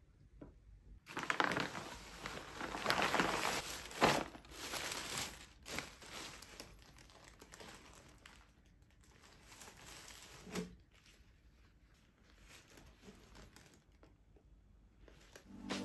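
Packaging crinkling as a new sweatshirt is unwrapped and handled. It is loudest for the first few seconds, with a soft knock about four seconds in and another near ten seconds, then quieter rustling.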